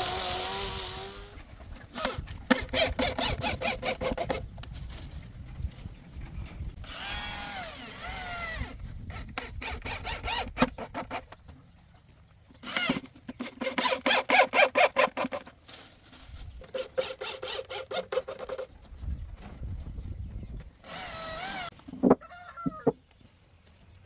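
Electric power drill running in repeated short bursts, with a rapid rattling pulse and a whine that rises and falls as it starts and stops.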